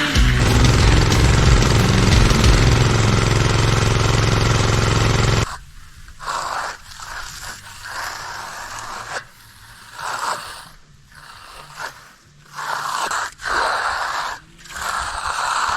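Background music that cuts off suddenly about five seconds in, followed by a series of separate scraping strokes, each lasting about half a second to a second, from a hand finishing tool drawn over concrete.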